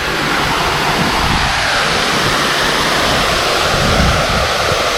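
Small creek waterfall pouring, a loud, steady rush of falling water.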